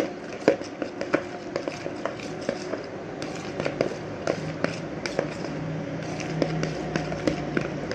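A spoon stirring boiled elbow macaroni in sauce in a plastic bowl: irregular light clicks, taps and scrapes of the spoon against the bowl.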